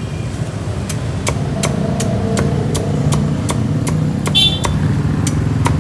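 Cleaver chopping crispy roast pork on a wooden chopping block, a quick run of about a dozen sharp chops at roughly three a second. Under it runs the steady low hum of an idling vehicle engine.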